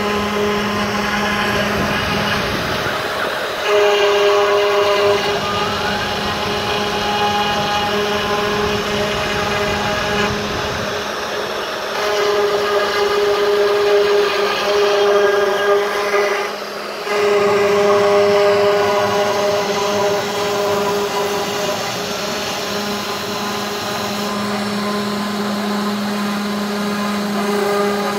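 CNC 3040 desktop router engraving wood with a V-bit, giving a steady machine whine. The main pitch shifts between a lower and a higher tone several times as the cut moves along the design, with a brief dip about 17 seconds in.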